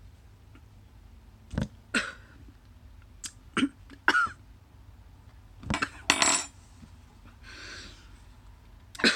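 A metal spoon clinking sharply several times over a few seconds, followed by short breathy huffs, the sort a person gives after taking sour vinegar from a spoon.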